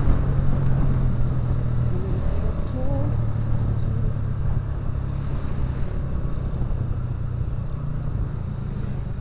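Motorcycle engine running steadily while riding, a low drone mixed with wind and road noise, easing slightly toward the end.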